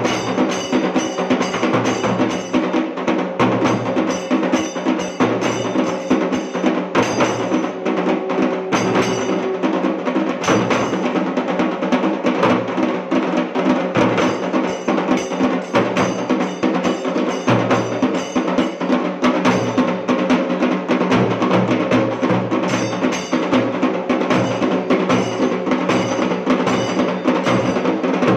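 Temple drum troupe of large barrel drums beaten with sticks, playing a fast, continuous rhythm with deep beats among the stick strokes and a steady held tone underneath.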